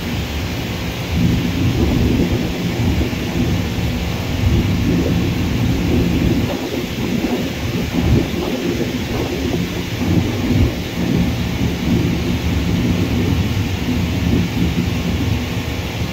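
Jet airliner engines heard from a distance: a loud, uneven low rumble with a hiss over it, swelling slightly about a second in.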